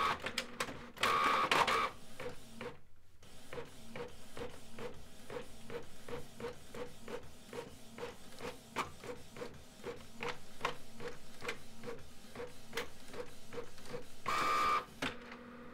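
Canon PIXMA MG5650 inkjet printer printing a page. Its feed motor whirs twice at the start, then a long even run of clicks follows at about two to three a second, and a last motor whir comes near the end as the printed sheet is pushed out.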